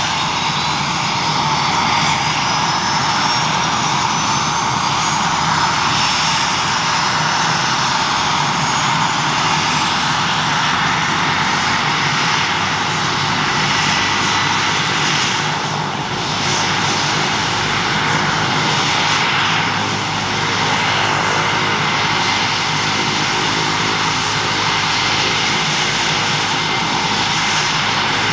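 PZL W-3 Sokol helicopter's twin turboshaft engines running on the ground with the rotors turning, a steady loud whine and rotor noise during the pre-take-off run-up. A high whine rises in pitch through the first ten seconds or so.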